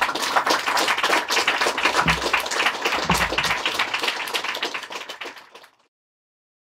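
Audience applauding: many hands clapping at once, dying away and cutting off near the end.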